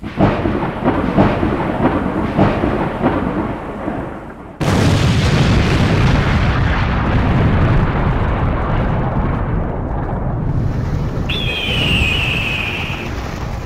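Thunder sound effect: crackling for the first few seconds, then a sudden loud clap about four and a half seconds in that rumbles and slowly fades. Near the end a high tone sounds for about two seconds, falling slightly.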